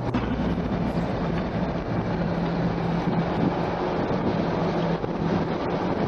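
Steady in-cabin car noise while creeping in slow traffic: engine and road rumble with a low hum.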